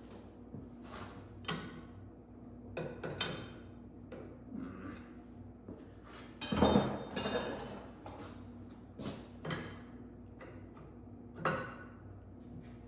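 Scattered metal clinks and knocks of hand tools and parts being handled, with one louder knock about six and a half seconds in.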